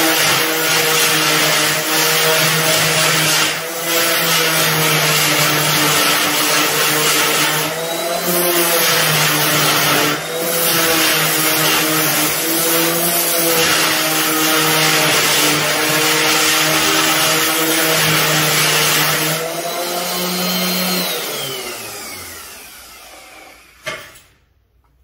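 DeWalt random orbital sander running on a dented tin car grille: a steady motor whine with the hiss of the pad on the metal, dipping briefly a few times as the sander is moved. About 21 seconds in it is switched off and winds down with a falling whine, followed by a single knock. The sanding shows up the high spots left after the dent work.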